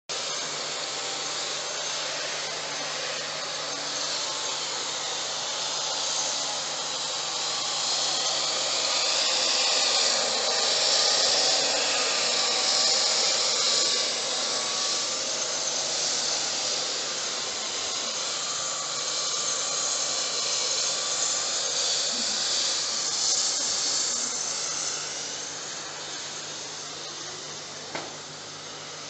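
Handheld electric belt sander running on a solid wood slab table top, a steady whirring hiss that grows louder in the middle and fades towards the end.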